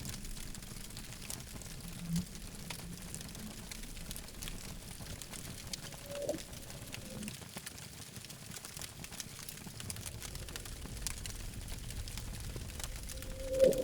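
Campfire burning, with scattered small crackles over a soft steady rumble of the flames. A short pitched tone sounds about six seconds in and again near the end.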